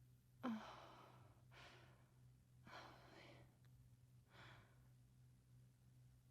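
A woman breathing softly in and out, four breaths in all, making two slow breath cycles. The first breath starts with a brief catch in the throat about half a second in. A faint steady hum sits underneath.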